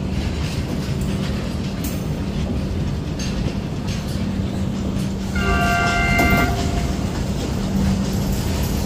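Steady running rumble of an Indian Railways passenger train's wheels on the rails. Just past the middle, a train horn sounds one multi-tone chord for about a second.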